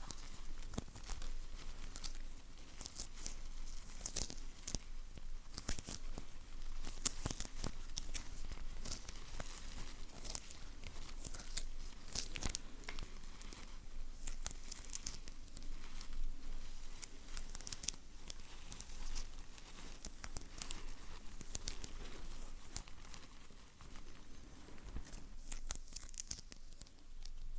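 Close-miked ASMR sticky sounds: something tacky being peeled and pulled apart in many short crackles, with some crinkling.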